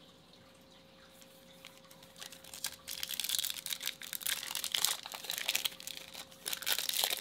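Foil wrapper of a Topps Chrome baseball card pack crinkling and tearing as it is ripped open by hand, starting about two and a half seconds in.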